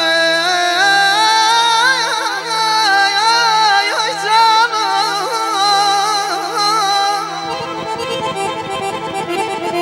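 A man sings a long wordless melismatic line, the pitch bending and wavering, over a steady accordion drone in Azerbaijani folk style. A little over seven seconds in the voice stops and the accordion takes up the tune with a drum beating under it.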